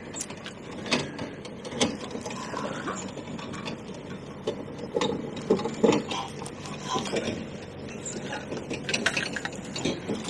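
Fishing reel being wound and ticking while a hooked chub is played in close to the bank, with irregular clicks and knocks.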